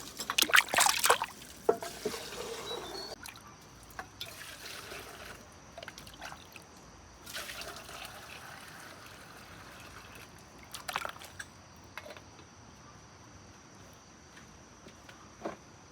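Water trickling and pouring in short spells, with a few sharp knocks.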